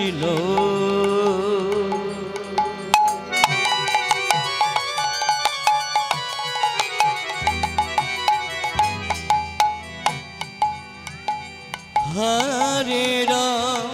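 Bengali kirtan music. A sung voice opens the passage, then an instrumental interlude follows with rapid hand-drum strokes under sustained melodic tones, and the singing comes back about twelve seconds in.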